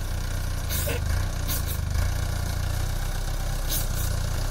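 Yunnei 90 hp diesel engine of an articulated four-wheel-drive dumper tractor running steadily as the machine crawls down a dirt slope. A few brief, sharp high-pitched noises sound over it.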